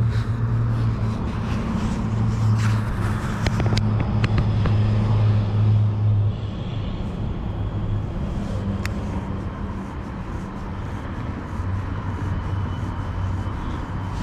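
Car engine idling with a steady low hum, which drops in level about six seconds in. A few sharp clicks and knocks come about three to four seconds in.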